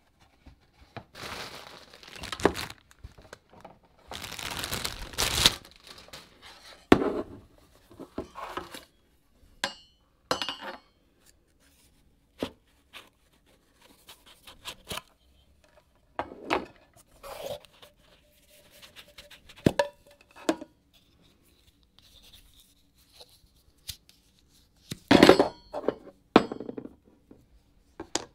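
Cardboard box and paper being handled: rustling and scraping in irregular spells, broken by sharp clicks and light metallic clinks as a tin canister and small metal parts are opened and set down on a table.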